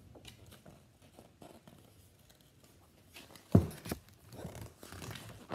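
Paper rustling as a picture book is handled and its pages turned, with a sudden thump about three and a half seconds in.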